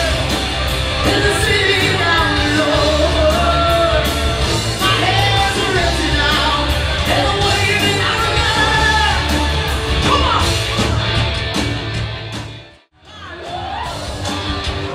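Live rock band with a lead singer over electric guitar and drums, amplified in a large hall. About two seconds before the end the music briefly fades almost to silence, then comes back in.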